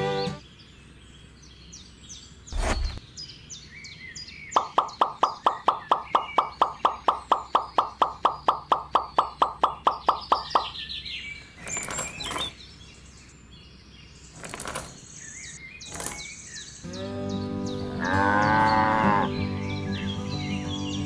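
Birds chirping, with a fast, even run of loud tonal pulses, about four a second, for some six seconds and a few sharp clicks; music then comes back with a cow mooing once near the end.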